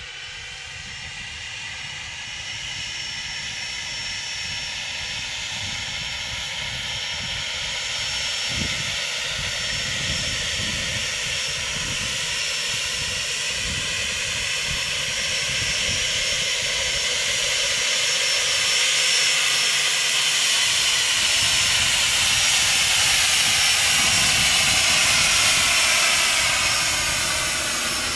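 Cessna 510 Citation Mustang's twin Pratt & Whitney Canada PW615F turbofans at taxi power: a steady jet whine and hiss. It grows louder as the jet taxis closer and eases off slightly near the end.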